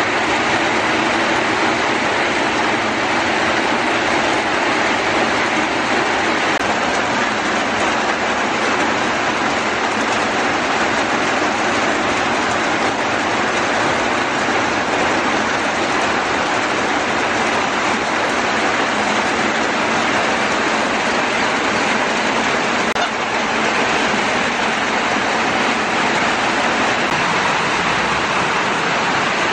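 Steady, loud rushing noise with no breaks or rhythm.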